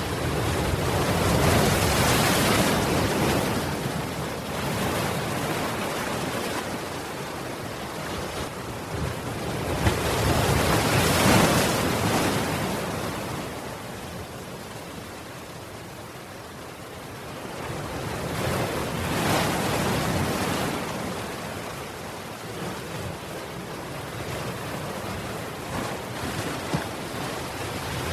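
Ocean waves breaking against a seawall and washing over it, the rush of surf swelling and fading in three big surges roughly nine seconds apart.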